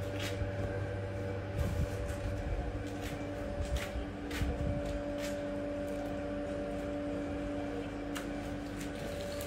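A steady electric machine hum, like a running household appliance, with a few sharp light clicks and taps scattered over it.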